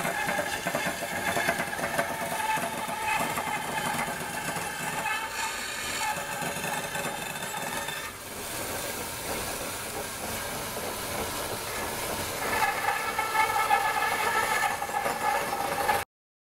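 Vertical band saw running and cutting through a block of maple while roughing out a handle: the rasp of the blade in the wood over a steady whine. It stops suddenly near the end.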